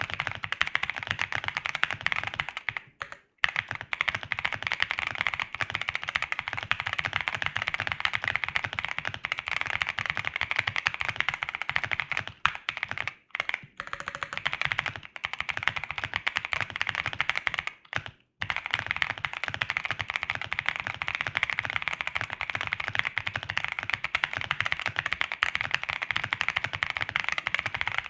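Fast continuous typing on a KBDFans Taco75 mechanical keyboard with lubed and filmed Boba U4T silent tactile switches in a polycarbonate plate and MT3 keycaps: a dense run of muted keystrokes, broken by short pauses three times.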